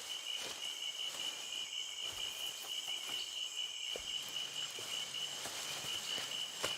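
Insects chirring steadily in a continuous high-pitched chorus, typical of crickets, with a few faint soft knocks.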